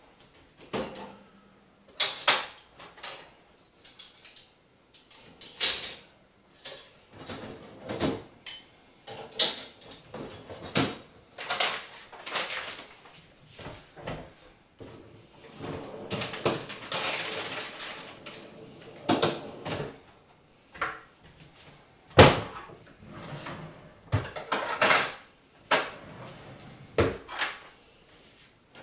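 Kitchen clean-up clatter: dishes and other items knocked together and set down on a counter in a long string of separate knocks, with a noisier couple of seconds past the middle.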